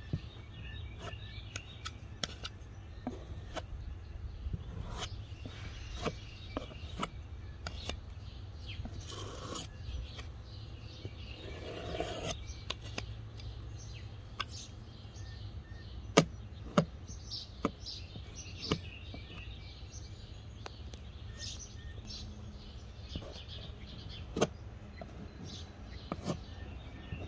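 Outdoor background noise with birds chirping, over which tools give scattered sharp taps and clicks on a hollow door panel as they are picked up and set down; twice, around 9 and 12 seconds in, comes a brief scrape of a putty knife working body filler on the door.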